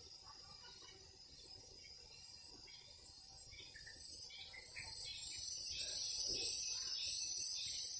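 A chorus of cicadas calling. A high-pitched buzz pulses about twice a second, then runs together into a near-continuous drone about halfway through, as a second, lower buzz swells in beneath it.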